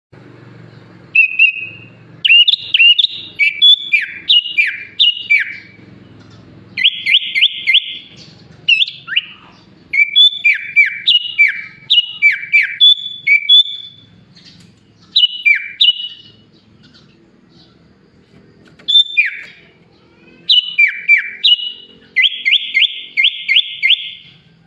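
Sooty-headed bulbul (kutilang) singing in loud bursts of clear whistled phrases with sharply falling notes, broken twice by fast rattling trills, about 7 seconds in and near the end. The song is stuffed with learned imitations of bar-winged prinia, greater green leafbird and Asian pied starling phrases.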